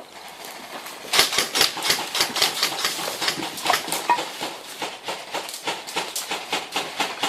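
Footsteps crunching and rustling through dry leaf litter and undergrowth, a quick irregular run of crackling steps that starts about a second in.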